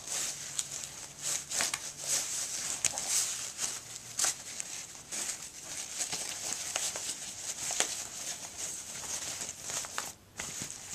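Rustling and crinkling of a fabric-covered gel pack and the vest's nylon fabric as the pack is pushed into the vest's webbing straps, with scattered small clicks and scrapes.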